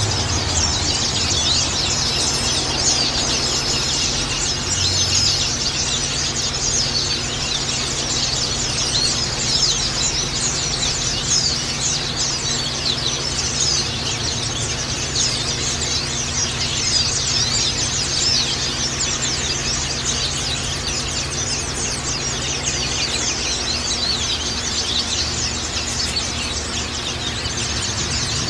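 A dense chorus of white-eyes (Zosterops, pleci) chirping and twittering over one another without pause, high-pitched and busy.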